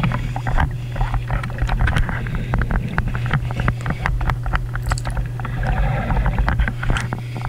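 Underwater sound through a GoPro's waterproof housing while a speared halibut tows the diver: muffled water noise with a steady low hum and many scattered clicks and crackles.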